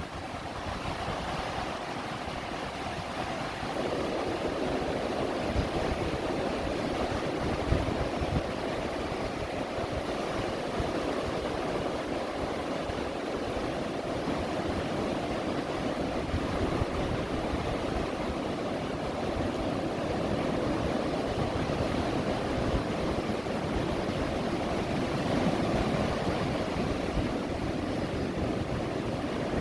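Ocean surf breaking and washing against a wooden pier's pilings: a steady rushing wash of waves that grows louder about four seconds in, over a low rumble.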